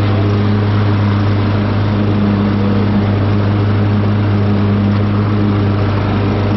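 Cub Cadet riding lawn mower's engine running at a steady speed with an even low drone as the mower drives across the lawn, heard close up from the seat.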